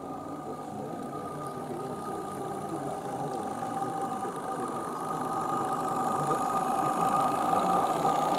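A small 16mm-scale live-steam garden railway locomotive running with its wagons, a steady mechanical chuffing and rolling with a steady high-pitched whine over it. It grows louder as the train approaches and passes close by in the second half.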